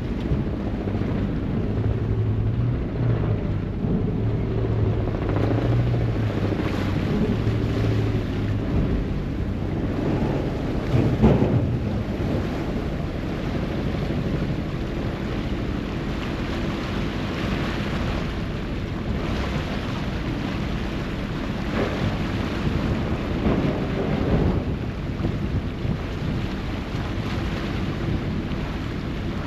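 A ferry's engine runs with a steady low hum, over a continuous wash of churning water and wind on the microphone. A brief knock or gust stands out about eleven seconds in.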